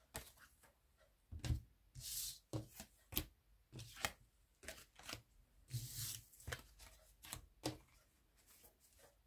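A deck of tarot cards being shuffled and handled: irregular sharp snaps and slaps of the cards, with a couple of longer swishes about two seconds in and again around six seconds.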